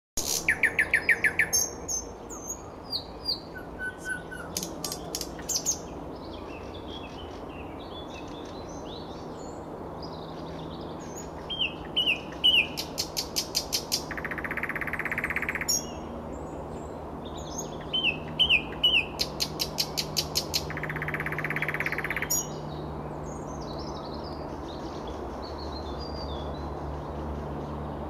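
Nightingale singing: loud phrases of rapid repeated notes and clear whistles, separated by pauses filled with quieter scattered notes, with two dense rattling trills about halfway and three quarters through.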